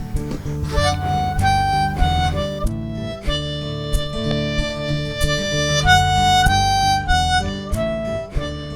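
Harmonica playing an instrumental solo of held, stepping melody notes over strummed acoustic guitar.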